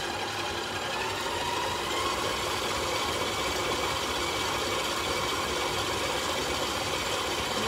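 Electric stand mixer's motor running steadily at speed, its beater creaming butter and sugar in a steel bowl.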